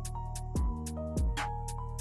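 Background music with a steady beat: instrumental, with a deep bass line, pitched melodic notes and regular drum hits about twice a second.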